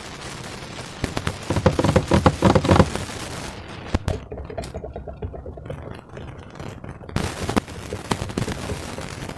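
Slime being squished and worked by hand, with a stream of sticky crackling clicks and squelches, loudest about two seconds in.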